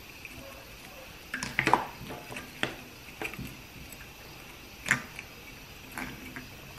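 Sharp clinks and taps of small metal parts and tools being handled on a workbench during a transmission valve body rebuild: a quick cluster about a second and a half in, then single taps spaced a second or so apart.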